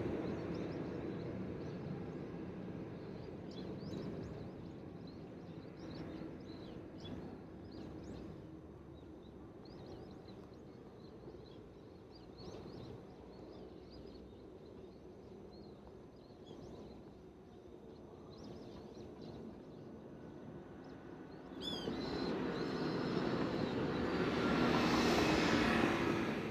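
Outdoor roadside ambience: a passing car fades away at the start, then small birds chirp in short high calls over low background noise. Near the end a louder rushing sound starts suddenly, swells and then drops away.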